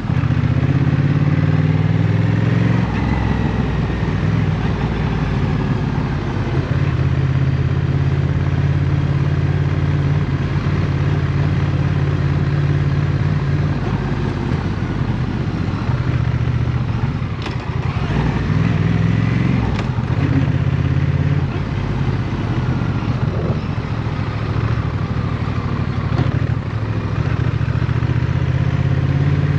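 Honda CMX1100 Rebel's parallel-twin engine running at fairly steady revs while the motorcycle rides through city traffic.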